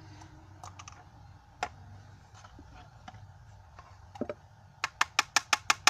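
A few scattered sharp clicks, then near the end a fast, even run of hard taps, about six a second.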